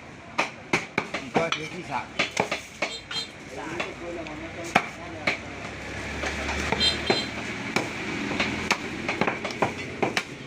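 Butcher chopping beef with a knife: a quick, irregular run of sharp chops, closest together in the first half.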